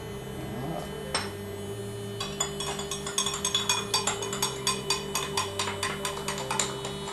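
PolyScience Smoking Gun handheld smoker running, its small fan motor giving a steady hum while it pushes smoke through the hose. From about two and a half seconds in, a fast run of light ticks sits over the hum.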